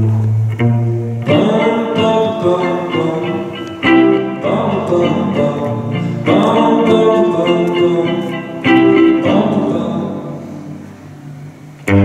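Live guitar intro: chords strummed on a guitar about every two and a half seconds, each left to ring and fade, over a low held note in the first second.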